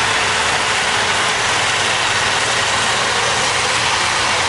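Farm tractor's diesel engine running hard and steady under full load while dragging a weighted pulling sled down a dirt track.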